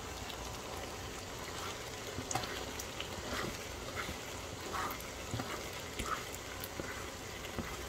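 Pan of buttered elbow macaroni sizzling on the stove: a steady sizzle with scattered small pops and ticks while chopped cilantro is scraped in from a plastic cutting board.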